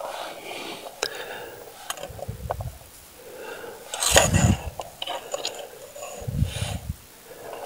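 A thin wire scraping and clicking along a wooden beehive's lower entrance as dead bees are raked out of it. Between the scrapes come a few short low vocal sounds from the person doing it, the loudest about four seconds in.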